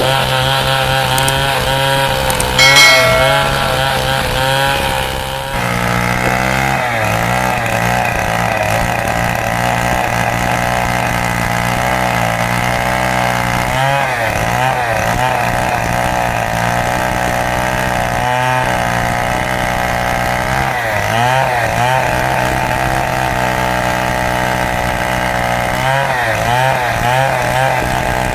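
Stihl chainsaw running under load while ripping a large teak log lengthwise, its engine pitch wavering and dipping as the cut loads it. There is a brief louder burst about three seconds in.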